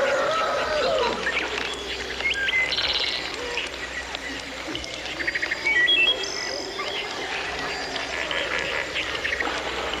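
Recorded jungle ambience: a chorus of many birds calling, with short whistles, chirps and rapid trills overlapping, over a steady background hiss. A louder falling call opens it.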